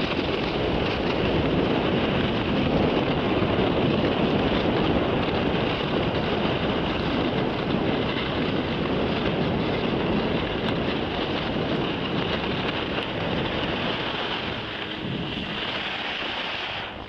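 Wind buffeting the microphone during a fast ski run, mixed with skis hissing and scraping over groomed snow, a steady rushing noise.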